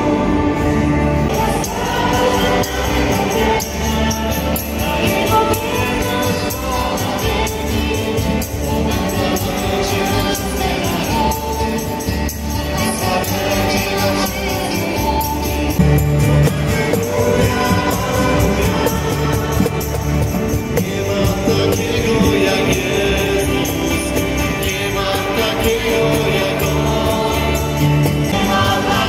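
A live worship band playing a song: sung vocals over acoustic guitars, electric bass and keyboard, with a steady full bass line.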